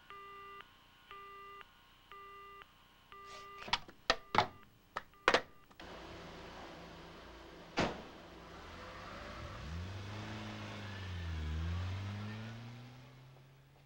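Telephone busy tone beeping about once a second, a steady low tone with its overtones, showing the call has been cut off. It is followed by several sharp clicks of the handset being handled. After that comes a steady hiss with a single knock and low tones that slide up and down.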